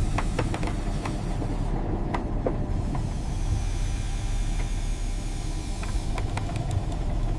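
Steady low mechanical rumble with a faint hum, over which scattered light clicks and knocks come and go.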